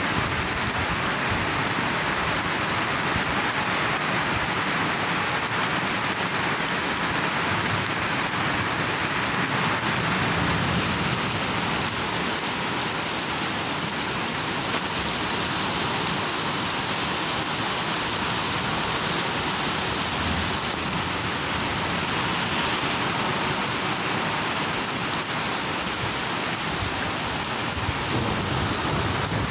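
Heavy rain falling steadily on grass and trees, an even hiss that keeps up throughout.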